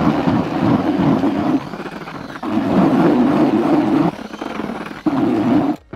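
Electric drill spinning a whisk mixer through groundbait and water in a plastic bucket, mixing it to a damp consistency. It runs hard in three spells, easing off between them, and stops just before the end.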